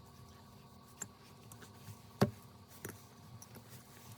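A few faint clicks and one sharper tap a little past halfway, from small repair tools handled against a phone's frame.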